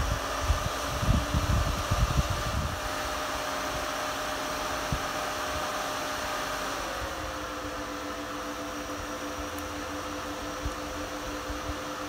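Three cooling fans on a Peltier heatsink running with a steady hum; about seven seconds in their hum shifts pitch as the Peltier modules come under load on the supply. Low handling knocks from wires and a screw terminal block in the first few seconds.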